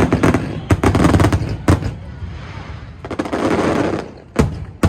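Aerial fireworks bursting in quick succession: clusters of sharp cracks and crackling, with two loud single bangs near the end.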